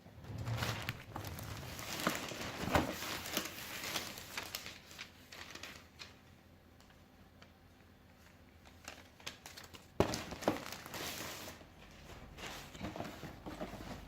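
Paper packaging crinkling and rustling as a sneaker box is unpacked, in two spells with a pause between. A sharp knock starts the second spell.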